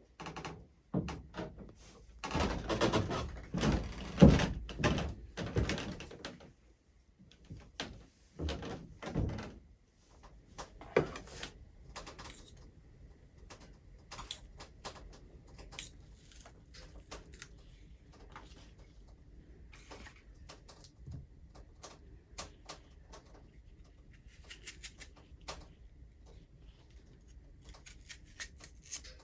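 Knocks, thunks and scraping clatter of things being handled in a small room, loudest and densest in the first ten seconds, then thinning to faint clicks and rustles.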